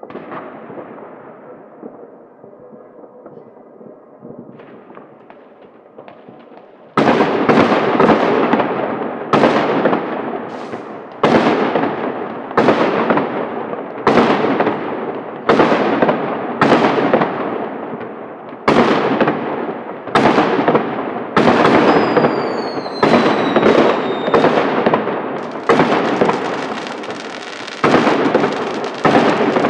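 New Year's Eve fireworks let off in city streets: faint distant crackling and pops at first, then about a quarter of the way in a long run of loud bangs, roughly one a second, each echoing away. A falling whistle sounds midway, and crackling thickens near the end.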